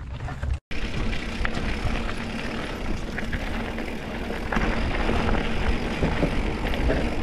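Steady rushing noise of a mountain bike ridden along a gravel trail: tyres rolling on gravel and wind over the camera microphone, with small rattles and clicks. It cuts out for a moment just under a second in, then gets louder from about four and a half seconds in.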